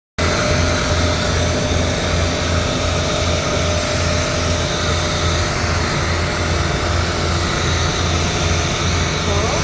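Air conditioner outdoor unit's fan running: a steady loud whoosh of air with a low throb about twice a second. The technician says the compressor is not running, only the fan.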